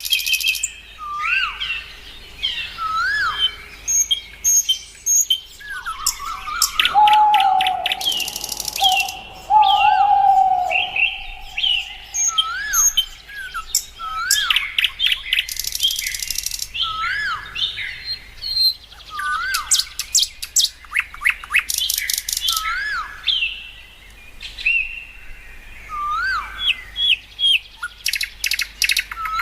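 Birds calling: many short whistled notes that rise and fall, repeated throughout, mixed with bursts of rapid chattering trills. A lower, drawn-out whistle runs from about seven to eleven seconds in.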